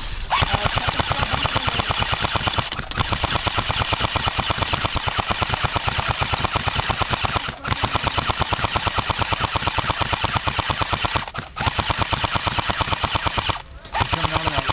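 Airsoft light machine gun firing full-auto in long, rapid bursts, a fast even rattle of shots broken by four short pauses.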